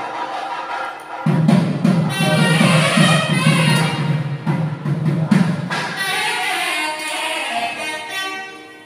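Nadaswaram music: a loud reedy, wavering melody, with a drum beating steadily underneath from about a second in until about five and a half seconds, after which the melody carries on alone.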